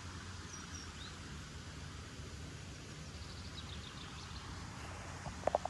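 Small birds chirping faintly in short high calls over steady outdoor background noise, with a quick cluster of short sharp sounds just before the end.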